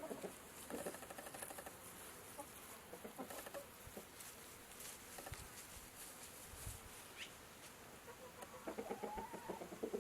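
Chickens clucking in quick runs of notes, at the start and again near the end, with a short rising bird chirp partway through.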